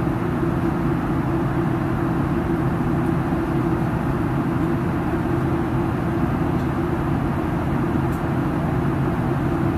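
Airliner cabin noise in flight: a steady, even rush of engines and airflow with a deep hum underneath, unchanging throughout.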